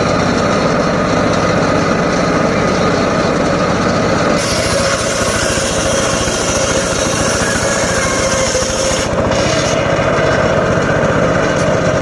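Homemade engine-driven circular saw running steadily as it cuts teak wood, with a rapid engine pulse underneath; a brighter hiss joins about four seconds in.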